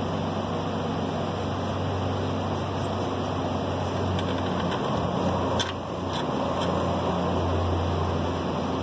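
A steady mechanical hum, with a few light clicks in the middle as the bolts of a new rubber drive shaft coupler are started by hand.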